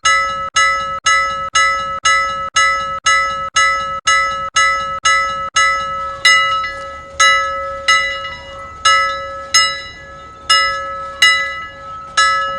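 Timer alarm bell ringing in rapid strikes of the same pitch, about two a second. About halfway through, the strikes become uneven and each rings out longer. It signals that the five-minute countdown has run out.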